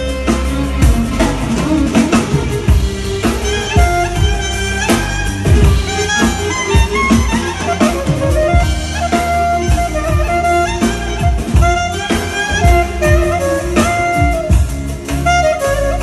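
Clarinet playing a melody of held and moving notes over electronic keyboard accompaniment with a steady drum beat.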